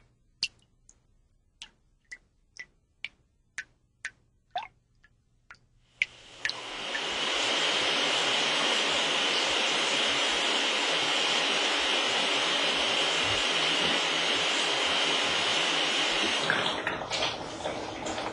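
Regular ticking about twice a second, then water running steadily from a tap for about ten seconds before tailing off near the end.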